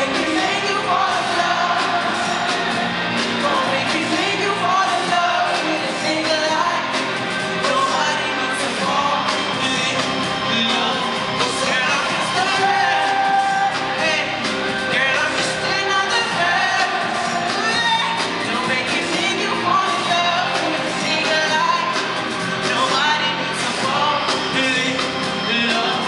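Live R&B song heard from the audience in a large hall: a male lead singer sings into a microphone over a full band through the venue's PA, his voice sliding between notes.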